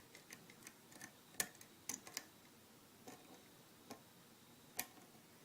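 Small, irregular metallic clicks and ticks of a short hook pick and tension wrench working the pins of a pin-tumbler lock cylinder during single-pin picking. The clicks are faint and uneven, with a sharper click about a second and a half in and another near the end.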